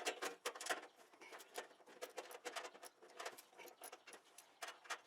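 Irregular light clicks and taps of something being handled at the control panel of a central air conditioner's condenser unit.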